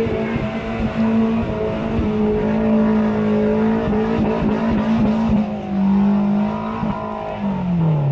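Off-road 4x4's engine held at high, steady revs as it ploughs through deep mud and water, with sloshing and knocks throughout. Near the end the revs fall away steadily.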